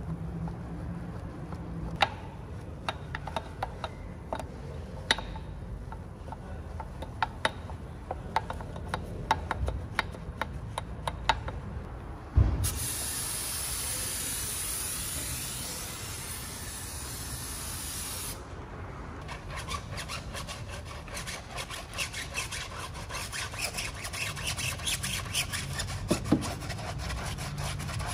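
A detailing brush scrubs soapy wheel spokes, with scattered sharp clicks of the brush against the rim. About twelve seconds in, after a thump, a handheld pump foam sprayer hisses steadily for about six seconds as it coats the tire. Then a brush scrubs the foamed tire sidewall with a fast, scratchy rubbing.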